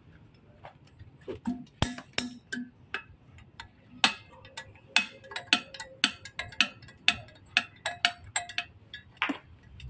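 Steel hand tool tapping and knocking on the metal housing and mounting bracket of a truck air dryer being taken apart: sharp metallic clicks, a few scattered ones, then a steady run of about three a second from about four seconds in.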